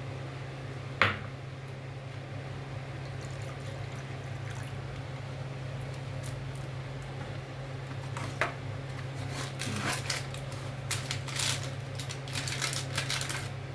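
Metal spoon working in a pan of tomato soup being thickened with cornflour: a sharp knock against the pan about a second in, then a quiet stretch, then a run of clinks and scrapes in the last few seconds, over a steady low hum.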